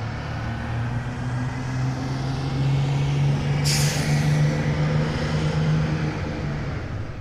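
A bus engine running steadily, its note rising a little as it revs over the first few seconds, then easing off near the end. About three and a half seconds in there is a short burst of air hiss.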